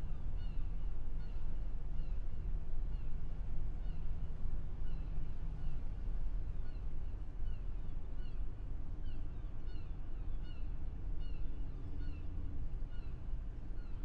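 Harbour ambience: a steady low rumble of boats and water, with short, high chirping bird calls scattered throughout.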